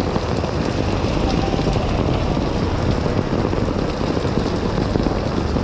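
Steady noise of heavy rain with a constant low rumble.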